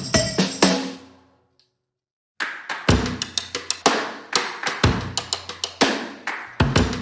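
Background music: the full band dies away about a second in, with a moment of silence, then a drum kit comes back in alone, playing a steady beat of kick, snare and cymbal hits.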